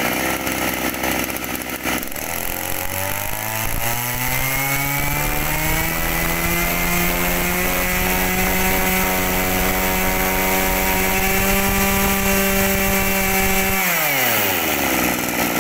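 Mitsubishi TL261 two-stroke brush cutter engine running, its revs climbing for a few seconds to a steady high-speed run. About fourteen seconds in the throttle is let go and the revs fall quickly toward idle.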